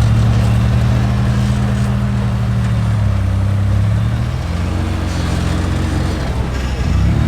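Off-road rig's engine running at low revs while crawling, easing off about halfway through and picking up again near the end.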